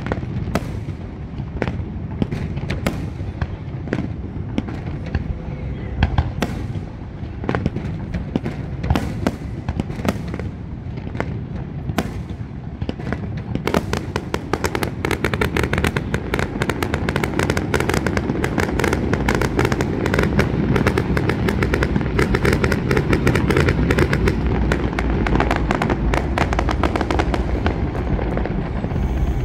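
Fireworks display: scattered sharp bangs of shells bursting, then from about halfway a dense, rapid barrage of bangs and crackling that grows louder.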